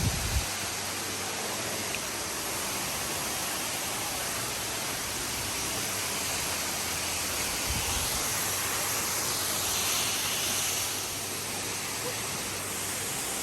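Steady rush of falling water from a waterfall, an even hiss that does not change, with a couple of brief low thumps.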